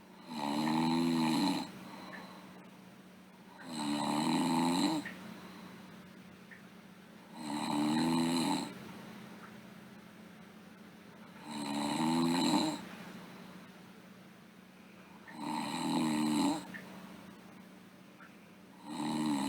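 A sleeping girl snoring in a slow, even rhythm: one snore about every four seconds, each lasting about a second and a half, with quieter breathing between.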